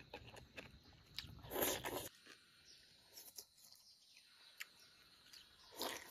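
A person eating chilli-oil chicken and rice close to the microphone: chewing and wet mouth clicks, with a louder slurp about a second and a half in. After about two seconds the sound drops to a few faint ticks, and there is another slurp near the end.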